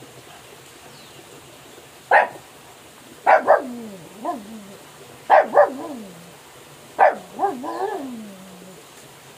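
Pug barking: sharp barks, mostly in pairs, starting about two seconds in, several trailing off into a falling, drawn-out tail, the longest near the end.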